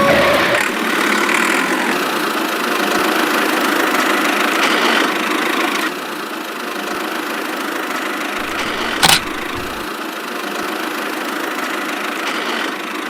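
A small motor running steadily, with a single sharp click about nine seconds in.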